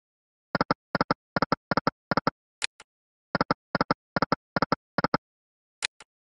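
Fruits Kingdom online slot game sound effects: twice, a pair of sharp high clicks starts a spin, then a quick run of about ten short electronic beeps as the reels come to a stop. Both spins pay nothing, so no win jingle follows.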